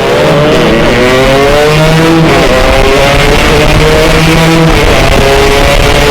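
Yamaha RX-King 135cc two-stroke single-cylinder motorcycle engine revved hard, its pitch climbing at the start, then dipping and rising again a couple of times.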